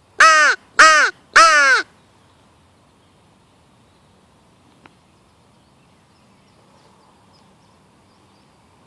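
A hand-blown crow call sounded in three loud caws in quick succession, each falling in pitch. It is being used as a turkey locator call, meant to draw a gobble from male turkeys.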